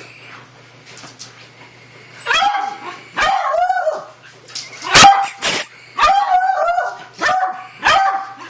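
A dog barking in short, high-pitched barks, about half a dozen from two seconds in, the loudest about halfway, while it chases a laser pointer's dot.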